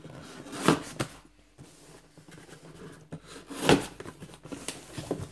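Cardboard parcel being handled and cut open with a pocket knife: two short, loud scraping rustles, about a second in and again near four seconds, then a couple of light knocks.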